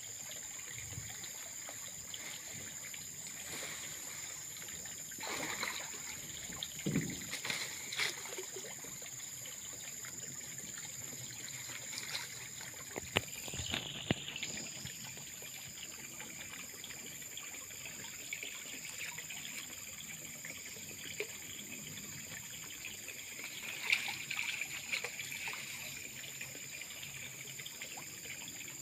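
Muddy pond water splashing and sloshing in several short bouts as a man wades waist-deep and gropes through it with his hands and a net. A steady high-pitched hum runs underneath.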